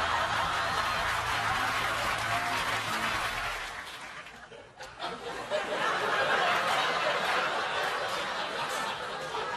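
Studio audience laughing. The laughter dies away about four seconds in, and a second round of laughter starts soon after.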